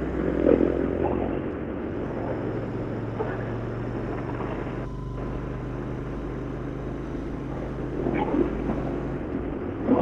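Royal Enfield Interceptor 650's parallel-twin engine running under gentle throttle while being ridden, with road and wind noise; its note shifts about a second in and again near the end. The engine is new and being run in.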